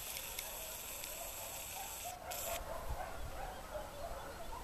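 Dogs barking faintly, with wind rumbling on the microphone.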